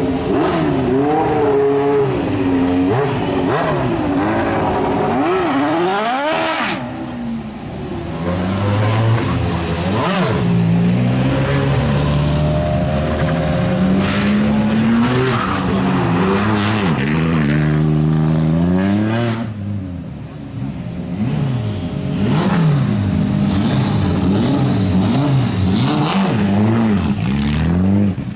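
Racing car engines revving and accelerating hard, their pitch repeatedly climbing and dropping with throttle and gear changes. The sound changes abruptly about 7 seconds in and again near 20 seconds, as one car's run gives way to another's.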